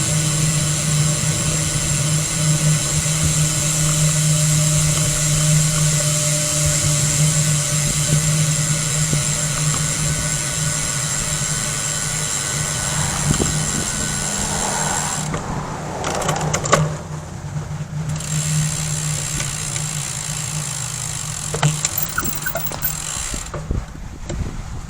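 A steady mechanical hum, like an engine running, that holds one pitch. A few sharp clicks come about two-thirds of the way in.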